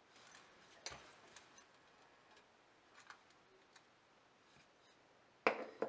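Wooden rolling pin rolling out dough on a wooden board: faint scattered ticks and light clicks, a sharper click about a second in, and a louder knock near the end.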